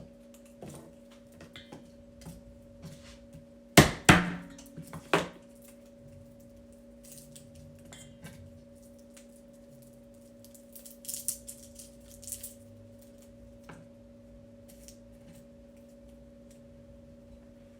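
Kitchen utensils and dishes clattering: a quick run of loud knocks about four seconds in, then faint scattered clicks and handling sounds, over a steady low electrical hum.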